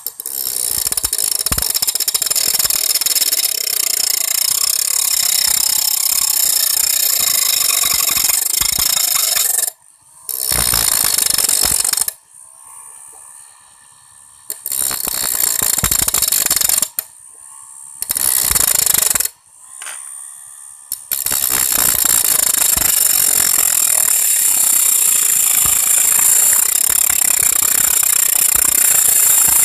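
Homemade 12 V tool driven by a 775 DC motor, its cutting blade grinding through a piece of iron: a loud harsh grinding screech. It breaks off and starts again several times in the middle, then runs steadily. The home-made blade is not quite true.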